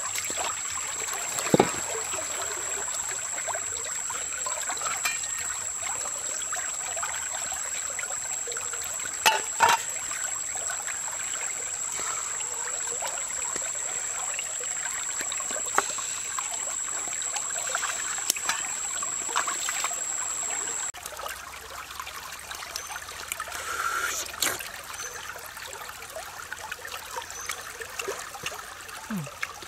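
Shallow stream running and trickling over rocks, with a few sharp clicks and knocks. A steady high-pitched tone sits over the water until about two-thirds through, where the sound cuts and the water becomes quieter.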